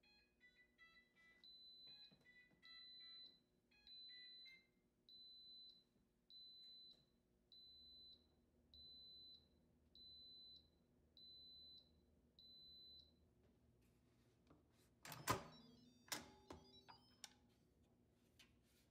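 Instant Pot electric pressure cooker sounding its end-of-program alert, the sign that its cycle has finished: a few seconds of mixed electronic tones, then a row of long, evenly spaced beeps at one high pitch, about one every second and a quarter. A couple of seconds later come sharp clunks and rattles as the lid is taken off.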